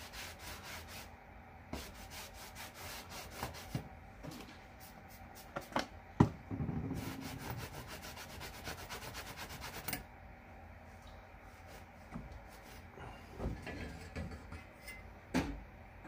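Cloth pad scrubbed back and forth over the rusty steel blade of an old crosscut saw: a run of scraping strokes that come fast and close together in the middle stretch. A single sharp knock about six seconds in.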